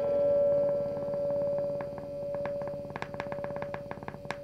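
Experimental noise music: a held tone that swells and fades in slow waves over a fast patter of clicks, the clicks standing out more after about three seconds.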